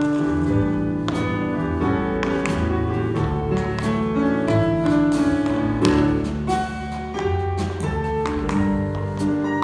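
Jazz trio of grand piano, upright bass and drum kit playing an instrumental passage, with the sharp clicks of tap shoes on the stage floor over the music.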